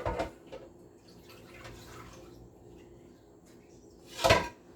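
Faint trickling of the chicken's cooking juices being poured, with a short louder noise near the end.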